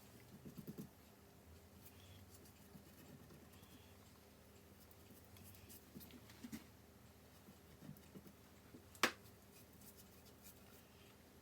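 Near silence with a few faint scattered taps and knocks, and one sharp click about nine seconds in.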